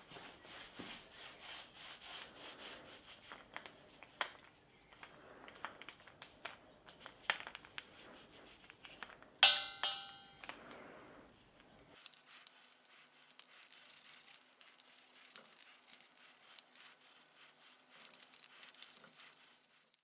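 Small paint roller rolling paint onto steel plates, a soft repeated rubbing with light clicks. About halfway through, a sharp metallic clank rings briefly, the loudest sound; the rubbing is quieter for the rest, over a faint steady hum.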